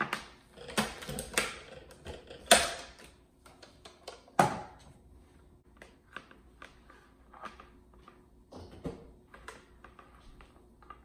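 Knocks and clatter of a plastic blender jar and its motor base being handled and set down, with a handful of sharp knocks in the first few seconds, the loudest about two and a half seconds in. After that come lighter scattered ticks as the power cord is handled.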